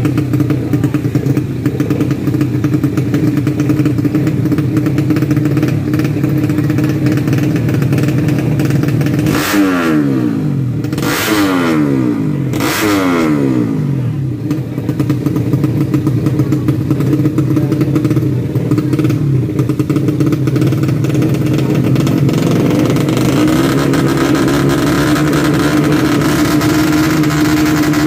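Tuned four-stroke underbone drag-bike engine running steadily, with three sharp throttle blips about a second and a half apart about a third of the way in, the revs falling back after each.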